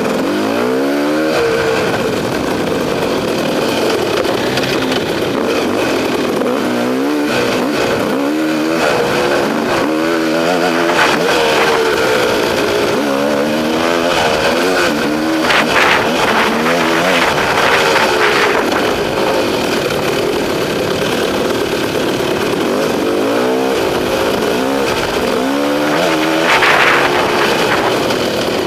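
KTM two-stroke enduro motorcycle engine, close up, revving up and down over and over as the rider works the throttle along a dirt trail.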